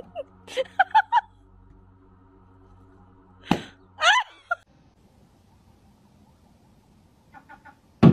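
A balloon pops with one sharp bang about three and a half seconds in, followed at once by a short rising cry. Before it come a few short chirping calls, and near the end there is another sharp thump.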